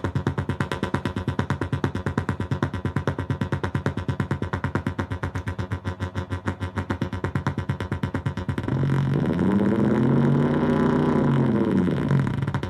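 Make Noise 0-Coast synthesizer jamming with Elektron gear: a fast run of repeating pulsed synth notes, shaped with the 0-Coast's Dynamics and Balance controls. About eight and a half seconds in, this gives way to a louder sustained tone that glides up and down in pitch.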